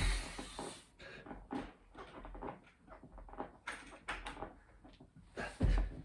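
A person doing burpees on a floor: a heavy thud right at the start and another about five and a half seconds in, with lighter knocks and bumps of hands and feet in between.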